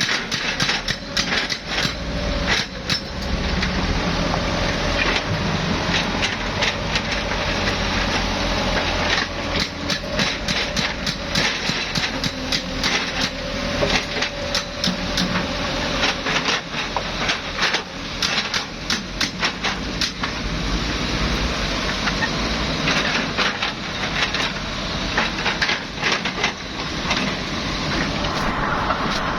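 Excavator working rocky ground: its diesel engine runs under dense, irregular knocking and clattering of rock against the steel bucket. A steady whine comes in for several seconds midway.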